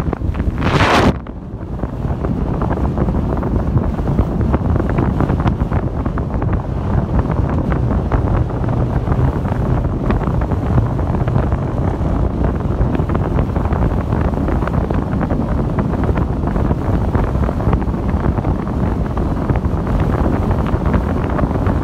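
Wind buffeting a phone microphone held out of the window of a moving car: a steady, heavy rushing, with a louder burst about a second in.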